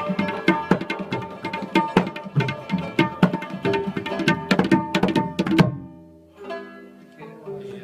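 Tabla played in fast, dense strokes over sustained notes from a rabab and harmonium, ending in a final flourish a little over five seconds in. After that only softer held notes ring on.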